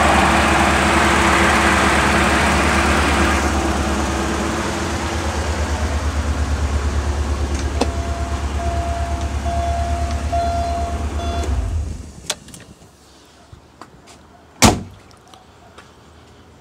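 Porsche 928's V8 engine idling steadily, then shut off about twelve seconds in, the running cutting out abruptly. A series of short beeps sounds just before it stops, and a single sharp knock comes near the end.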